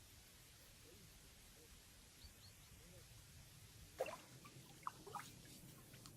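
Near-silent outdoor quiet by the water with a faint chirp or two. From about four seconds in come a few soft, irregular clicks and knocks, the sound of fishing tackle being handled.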